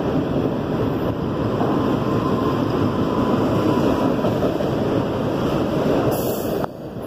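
Autorack cars of a passing freight train rolling by, a steady rushing noise of wheels on rail that dips briefly near the end.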